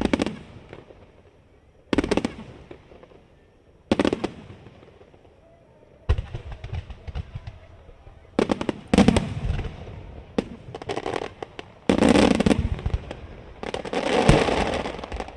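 Aerial firework shells bursting. Three single booms come about two seconds apart, then a quicker run of bursts with crackling follows, swelling loudest near the end.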